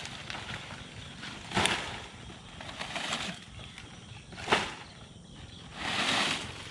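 Dry fan-palm fronds rustling and crackling as they are pulled off a pile and tossed aside, with a sharp crack about a second and a half in and another one a little after four seconds.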